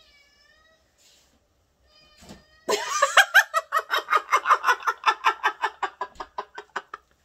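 A pet yelling: a few faint calls, then a loud, rapid run of high-pitched calls, about seven or eight a second, lasting about four seconds.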